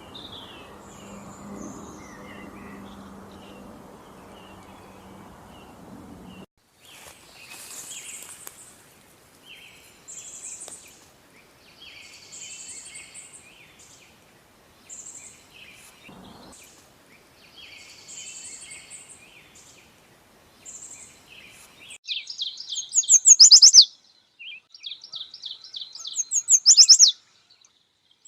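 Songbirds singing. For the first six seconds the song sits over a low hum and background noise. Then short high phrases repeat every couple of seconds, and from about 22 seconds in a much louder, rapid trilling song comes in short bursts, three times.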